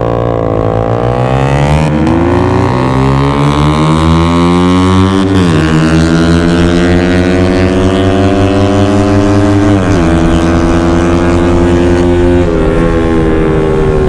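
Motorcycle engine accelerating hard through the gears: its pitch climbs steadily, then drops at each gear change, four times over, near two, five and a half, ten and twelve and a half seconds in.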